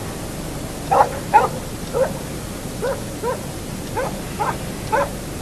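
A dog barking in short, repeated yaps, about eight in all, over a steady background hiss.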